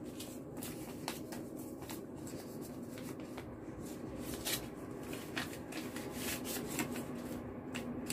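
Paper red envelopes and banknotes being handled by hand: repeated crinkling and rustling as an envelope is opened and a note drawn out, over a faint steady hum.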